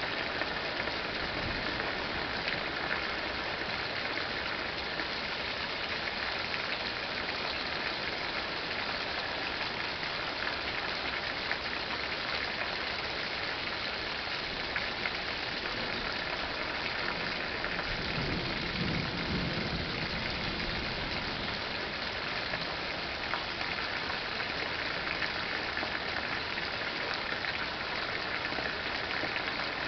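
Steady thunderstorm rain falling, an even hiss of drops. A brief low rumble comes about two-thirds of the way through.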